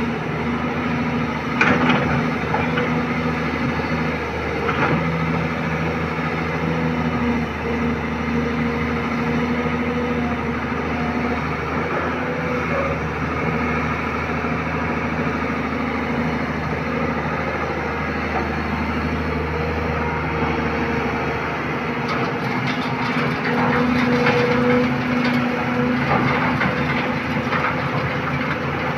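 Kobelco SK200 hydraulic excavator's diesel engine running steadily as it digs and swings. Near the end there are bursts of rattling as a bucketful of sand is tipped onto the sieve on the dump truck.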